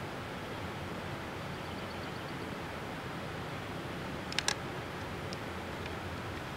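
Steady hiss of outdoor background noise, with two sharp clicks close together a little after the middle.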